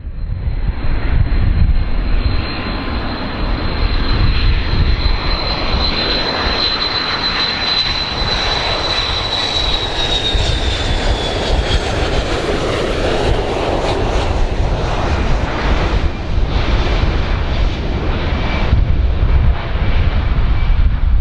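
Boeing 727's three JT8D turbofan jet engines on landing approach: a loud steady rumble with a high whine that slides down in pitch about ten seconds in as the jet passes close by.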